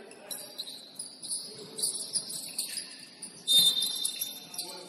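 Basketball shoes squeaking on a hardwood gym floor as players cut and stop, with scattered short high chirps and one loud, longer high squeal about three and a half seconds in.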